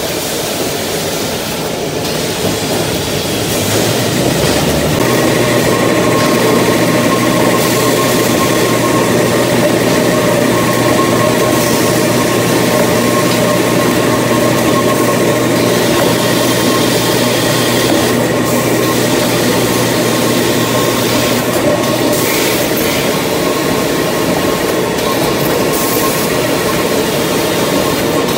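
Toilet paper maxi roll production machinery running steadily. It gets louder about four seconds in, when a steady low hum and a higher whine set in.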